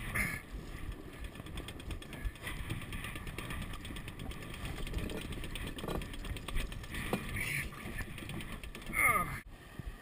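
Wind buffeting the deck-mounted camera's microphone and water rushing along the hull of a sailboat beating in strong wind, with a few brief faint crew voices. The sound cuts off suddenly near the end.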